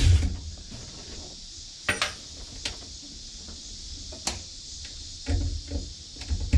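Scattered light clicks and knocks from hands working loose car-audio amplifier wiring and crimp connectors: a few sharp isolated clicks, then a cluster of duller knocks near the end, over a steady hiss.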